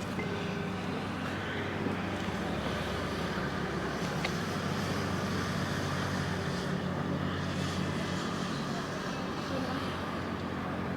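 Steady low engine hum under continuous outdoor background noise, with one faint click about four seconds in.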